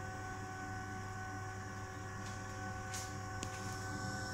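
EBMpapst RG148 gas-boiler blower fan running steadily under its repaired, processor-updated controller board: an even whine of several steady tones over a low hum, with two brief clicks about three seconds in. The fan is modulating smoothly.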